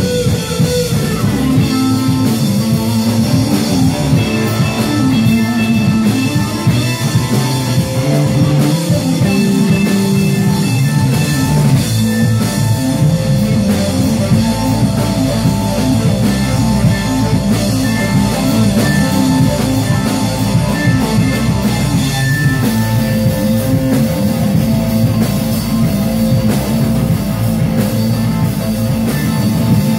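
Live rock band playing an instrumental passage with electric guitars and a drum kit, with no singing.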